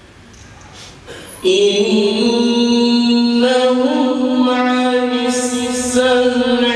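Man chanting a Quran recitation in the melodic tajwid style, holding long drawn-out notes that rise and fall in pitch. He comes in about a second and a half in, after a short pause for breath.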